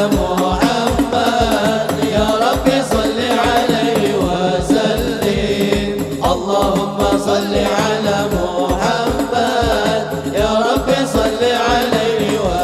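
Sholawat sung live with a hadroh ensemble: male voices singing a devotional melody over a steady, even beat of hadroh bass drums and frame drums.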